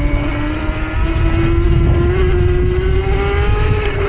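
Electric minibike's motor whining, its pitch rising slowly and steadily as the bike gathers speed, over a heavy low wind rumble on the microphone.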